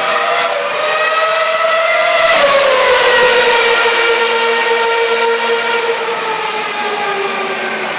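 Red Bull RB7 Formula One car's Renault V8 running at high revs as it drives past: the engine note climbs slightly as it approaches, drops sharply about two and a half seconds in as it goes by, then holds lower and fades.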